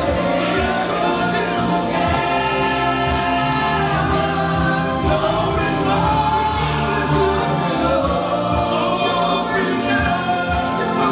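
Gospel choir singing praise music over a band with a steady beat, recorded live through a camera microphone, slightly crackly.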